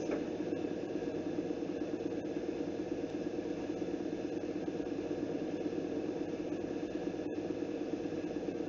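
Steady low mechanical hum with a fast, even flutter, broken by a few very short dropouts.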